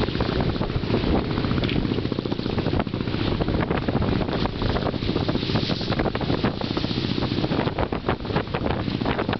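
Strong wind buffeting the microphone on a boat, a loud, steady rumble with constant flutter.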